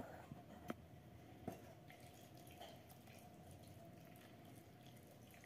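Milk pouring from a steel pot onto torn roti in a steel bowl: a faint trickle and drip, with three light clicks in the first second and a half.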